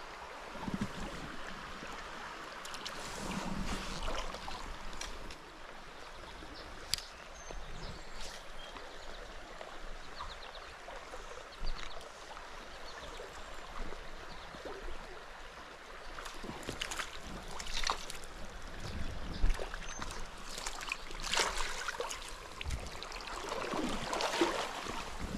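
Creek water running, with irregular splashing and sloshing of water rising and falling several times.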